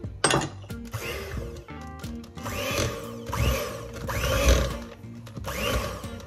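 Kambrook Essentials PowerMix electric hand mixer running, its beaters working cocoa powder into thick chocolate cookie dough in a bowl; the sound swells and eases several times as the beaters move through the dough. Light background music underneath.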